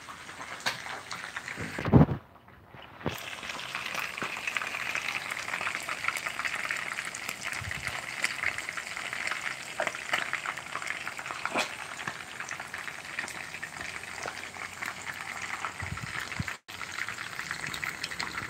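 Fish pieces frying in hot oil in a pan: a steady sizzle with scattered crackling pops. A loud thump comes about two seconds in, just before the sizzle sets in.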